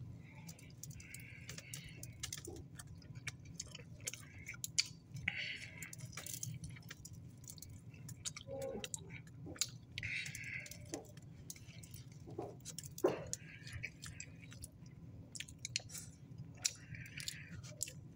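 A man biting into and chewing a chicken cheesesteak on a soft sub roll, close to the microphone, with scattered small mouth clicks over a steady low room hum. He takes a bite near the start and another about ten seconds in.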